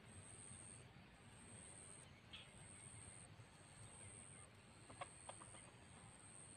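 Near silence: faint outdoor ambience with a high, thin buzz that breaks off briefly about once a second, and a few faint clicks about five seconds in.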